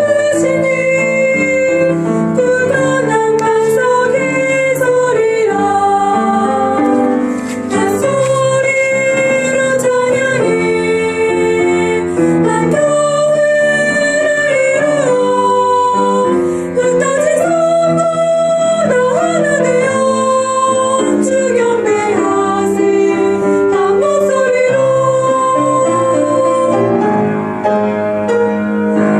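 Soprano singing of a worship song with piano accompaniment, the voice holding long notes with vibrato.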